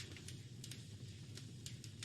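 Wood fire crackling in a fireplace: a few sharp, scattered pops and snaps over a low, steady rumble of the burning fire.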